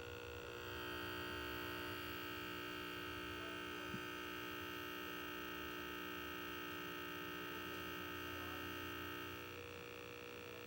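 Steady electrical hum with a higher whine from the external speakers hooked to a portable VHS/DVD player. The whine fades out near the end.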